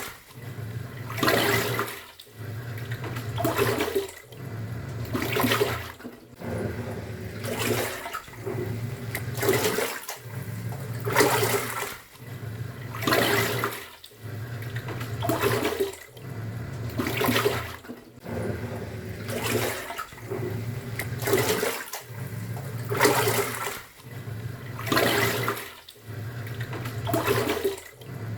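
Top-loading pulsator washing machine agitating a load in water: the motor hums and the water sloshes as the pulsator turns one way, stops and turns back, about once every two seconds.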